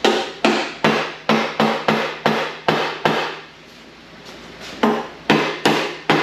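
Hammer blows on the valve cover of a Chrysler 440 big-block V8, about three strikes a second in a run of some ten, a pause of over a second, then four more: trying to knock a stuck cover loose that is still held by a couple of bolts left in.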